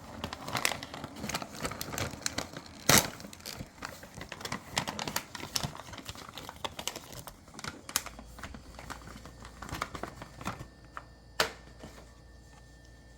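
A snack wrapper crinkling and being torn open by hand: a run of irregular crackles and rustles, with two louder sharp snaps, one about three seconds in and one near the end.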